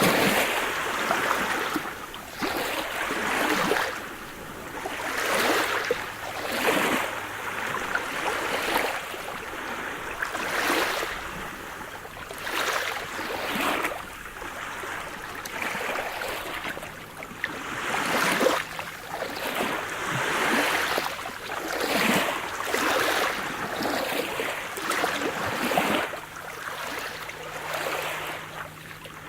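Sea surf: small waves washing in and breaking one after another, a surge of hissing water every second or two.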